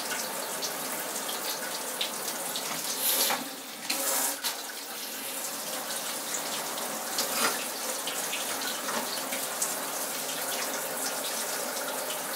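Handheld shower head spraying water in a steady hiss, with two brief louder gushes about three and four seconds in.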